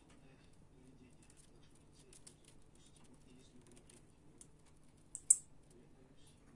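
Bats moving about on and around a mosquito-net canopy: faint, scattered high ticks and scratches, with one sharp high click about five seconds in.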